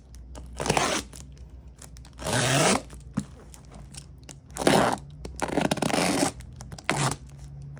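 Packing tape on a cardboard shipping box being slit with a utility knife and torn, in about five short tearing strokes a second or so apart.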